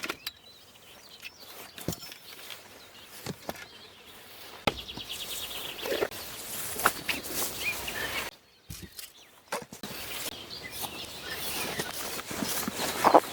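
Outdoor scene with scattered knocks and rustling and a few bird chirps, with a brief near-silent gap midway.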